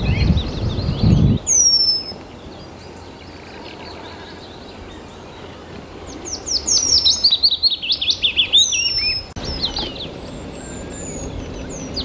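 Eurasian penduline tit calling: two thin, high whistles that fall in pitch, one about two seconds in and one about nine seconds in. Between them another songbird sings a fast run of notes that tumbles down in pitch. A low rumble fills the first second or so.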